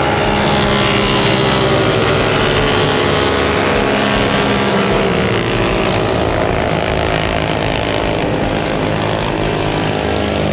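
Engine running with a steady drone, its pitch falling near the end.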